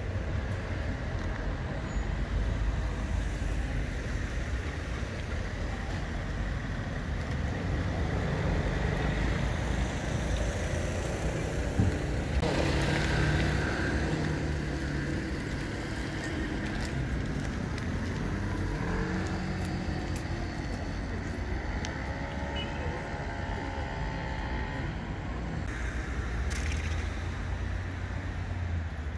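Street traffic: a steady rumble of road vehicles, with passing engines whose hum rises and falls in the middle stretch.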